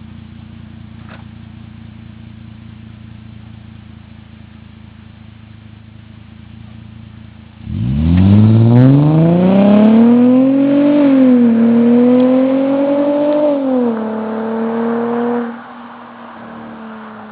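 Mercedes-Benz W203 C230's V6 through a custom exhaust with the resonator deleted, idling steadily. About eight seconds in it revs hard, the pitch climbing, dipping briefly and climbing again, then it drops to a lower held note and falls back to idle near the end.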